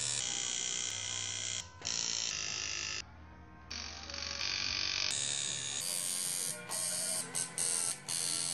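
Electric tattoo machine buzzing steadily, broken by abrupt cuts and a brief quieter stretch about three seconds in.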